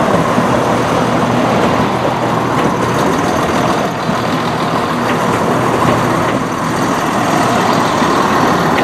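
Class 170 Turbostar diesel multiple unit running into the platform, its underfloor diesel engines giving a steady hum as the carriages pass.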